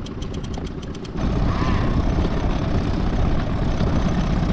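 Conventional fishing reel's clicker ticking rapidly, about seven ticks a second, as line pays out for the jig. About a second in it gives way to a steady low rumble.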